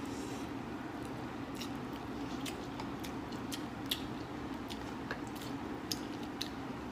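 People eating instant noodles with forks: quiet chewing with scattered light clicks of cutlery against bowls, over a steady low hum.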